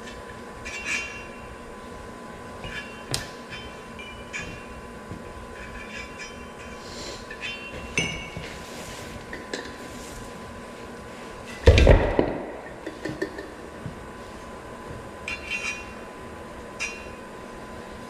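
Hand work on a backhoe tire and steel wheel on a concrete floor: scattered light metallic clinks and taps, with one heavy thump about twelve seconds in. A faint steady tone runs underneath.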